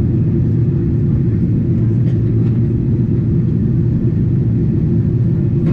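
Steady low rumble of engines and airflow inside the cabin of a Boeing 777-300ER during its descent toward landing.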